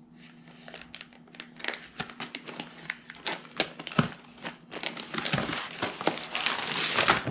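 Packing material crinkling and rustling as parts are pulled out of a shipping box, in quick irregular crackles that grow busier and louder over the last couple of seconds.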